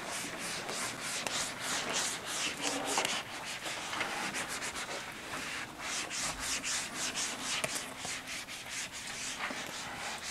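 Whiteboard eraser wiping marker off a whiteboard in quick back-and-forth strokes, a continuous run of rubbing swishes several times a second.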